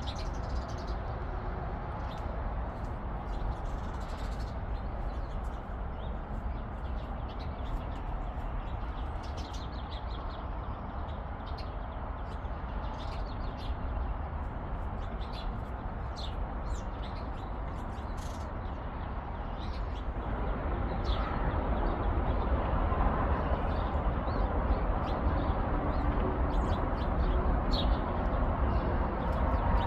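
Small birds in a pine tree chirping, with many short, high calls scattered throughout. Under them runs a steady background rush that grows louder about two-thirds of the way through.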